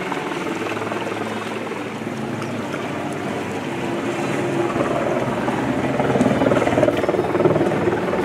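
Steady drone of motorboat engines, growing louder in the second half.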